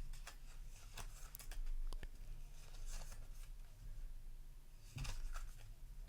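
Foil booster pack wrapper being opened, with scattered crinkling, tearing and small clicks, and the trading cards inside rustling as they are handled.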